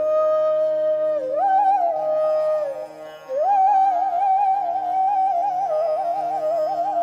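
Music: a single melody line with wavering, ornamented notes over a steady drone, breaking off briefly about three seconds in.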